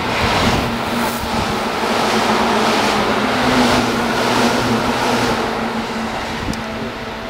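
Seibu 10000 series limited express electric train passing through a station at speed: a loud rushing noise that swells as the train arrives, with a steady low hum and a regular pulsing from the passing wheels, easing off near the end.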